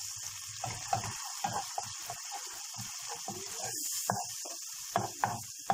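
Diced tomatoes, garlic and tomato paste sizzling in a frying pan, with a wooden spoon scraping and stirring against the pan in short, irregular strokes, a few sharper knocks near the end.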